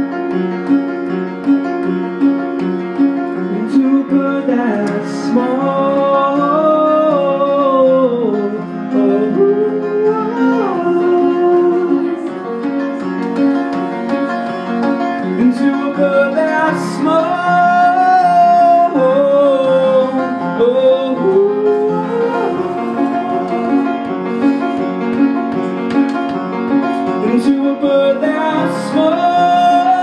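Live band music led by piano, with a melody line above it that slides and bends in pitch, and a few sharp percussive hits.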